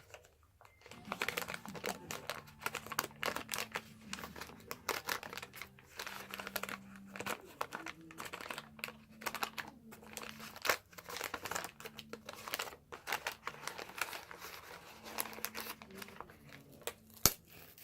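Wax-paper wrappers of 1981 Donruss baseball card packs being torn open and crinkled by hand, a steady run of irregular crackles and rips with one sharp snap near the end.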